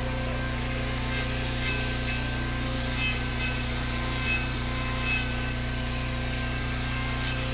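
Corded electric grinder running steadily, with rough scraping a few times as it is worked over a cow's hoof during trimming.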